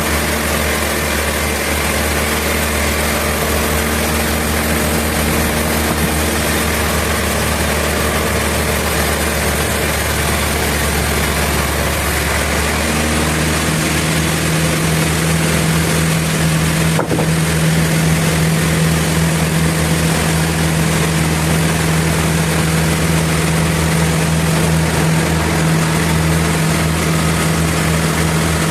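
Sawmill machinery running steadily, with a motor's hum. Its pitch changes about halfway through, and there is a brief break a few seconds later.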